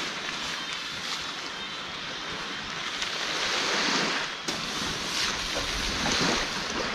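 Nylon tent fabric rustling and flapping as a rainfly is lifted off and a dome tent is collapsed, over surf washing on the beach. The hiss swells and eases several times.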